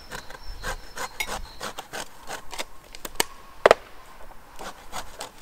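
Lemon being grated for zest on a tall metal grater: irregular rasping strokes, with one sharper knock about three and a half seconds in.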